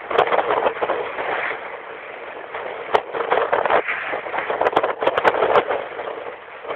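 Rushing wind and water noise aboard a small fishing boat in strong wind, with irregular knocks and rattles of the boat throughout.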